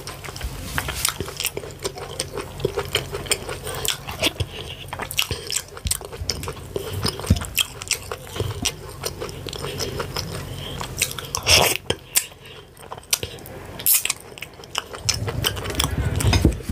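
Close-miked eating sounds: chewing with a dense run of wet mouth clicks and smacks as fufu is eaten with ogbono and ewedu soup. One louder click comes about eleven and a half seconds in.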